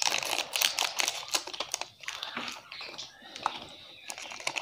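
Plastic chocolate-bar wrapper crinkling and crackling as it is cut open with small scissors and the bar is worked out of it. A dense run of sharp crackles fills the first two seconds, then softer, scattered rustling follows.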